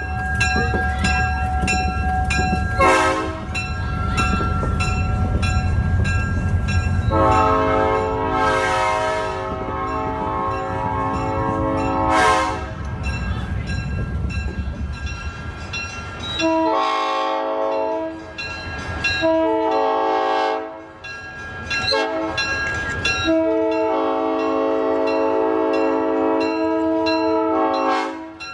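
Southern Pacific E9 diesel locomotive's horn blowing a chord of several notes in separate blasts: a short blast about three seconds in, a long one of about five seconds, then four more blasts in the second half, the last the longest. A low rumble of the train runs under the first half and stops about halfway through.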